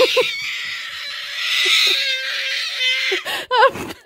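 A nine-month-old baby shrieking with excitement: one long, high, breathy squeal, then short pitched squeals near the end.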